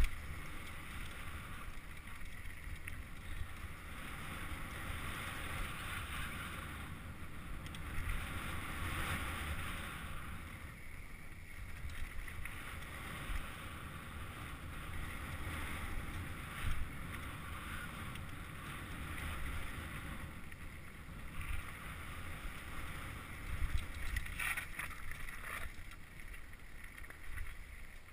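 Wind buffeting the microphone of a camera on a descending Santa Cruz V10 downhill mountain bike, over the steady rumble and rattle of its tyres on a dirt and gravel trail. A couple of sharp knocks stand out as the bike hits bumps.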